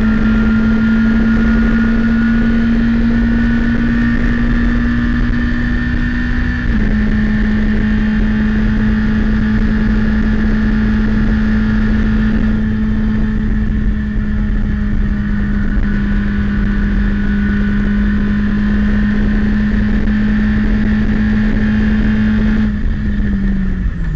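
In-car sound of a Citroën Saxo race car's four-cylinder engine held at high revs, around 6,500 rpm, under full throttle, with road and wind noise beneath it. A quick upshift into fifth about seven seconds in drops the pitch a little. Near the end the note falls away as the driver lifts off for braking.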